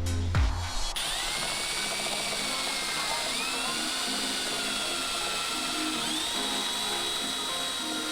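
Power drill running in steady bursts: the motor whine rises as the trigger is squeezed about a second in, and again twice later, then holds steady each time.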